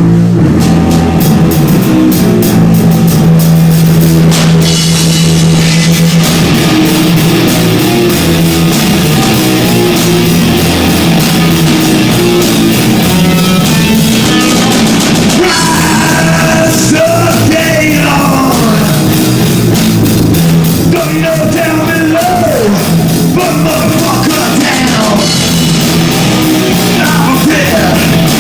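Live rock and roll band playing loud with drums, and a voice singing from about halfway through, distorted by an overloaded phone microphone.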